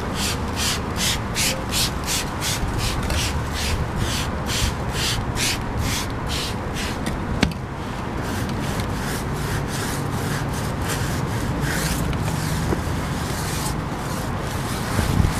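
A trigger spray bottle is squeezed in quick hissing squirts, about three a second, then lands with a sharp clack about halfway through. After that comes a steady scrubbing of a brush on a tire's rubber sidewall.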